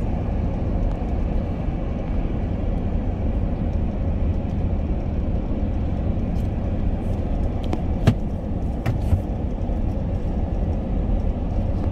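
Steady road and engine noise heard inside the cabin of a car moving at highway speed, with a sharp click about eight seconds in.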